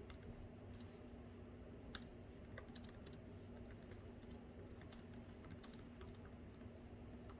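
Faint typing on a laptop keyboard: quick, irregular key clicks in runs, over a low steady hum.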